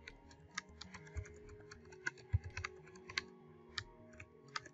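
Computer keyboard typing: a quick, irregular run of key clicks as a line of text is typed, with faint music underneath.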